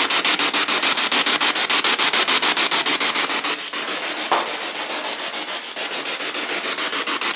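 Spirit box scanning through radio frequencies and played through a small JBL portable speaker: loud, steady static chopped into even pulses about eight times a second, with one short chirp about four seconds in.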